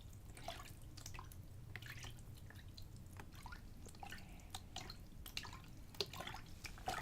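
A little water splashing back and forth in a container: faint, irregular small drips and splashes.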